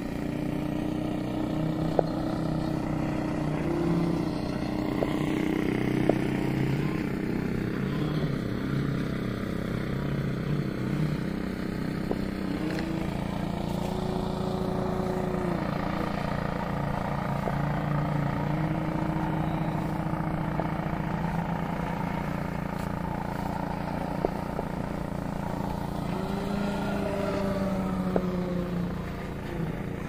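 Large electric RC plane, a Seagull Decathlon 122" with a Scorpion outrunner motor turning a 28x13 propeller, droning in flight overhead, its pitch rising and falling a few times, over a steady low rumble.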